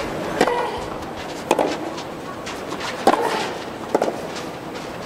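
Tennis ball struck by rackets in a rally: a serve about half a second in, then several more sharp pops with a brief ring, roughly a second to a second and a half apart, over steady outdoor ambience.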